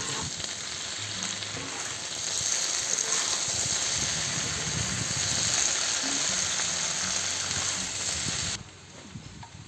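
Potatoes and onion sizzling in hot oil on a steel saj griddle while they are turned over. The sizzle grows louder a couple of seconds in and cuts off sharply near the end.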